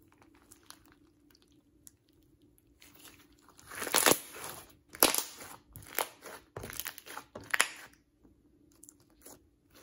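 Hands squeezing, folding and pressing slightly overactivated clear slime mixed with small beads, making crackly, crunchy squishes. After a few seconds of faint ticks, about one squish a second for several seconds, then a few faint clicks near the end.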